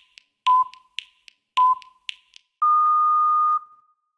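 Workout interval timer beeping: two short beeps about a second apart, then one long, slightly higher beep that marks the end of the 40-second work interval, with faint clicks between the beeps.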